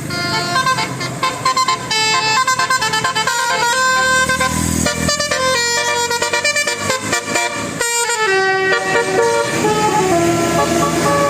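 Bus 'telolet basuri' melody horn playing a fast tune of short stepped notes, several horn tones sounding together, with two brief breaks partway through.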